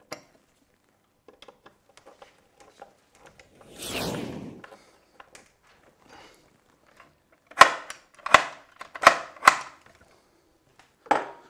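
Faint creaks and clicks of a hand screwdriver driving screws through a security chain's metal plate into a wooden door, with a brief rustle about four seconds in. About two-thirds of the way through come four sharp knocks within two seconds.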